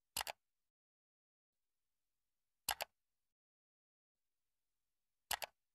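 Click sound effect, like a computer mouse click: a quick double click three times, about two and a half seconds apart, with dead silence between.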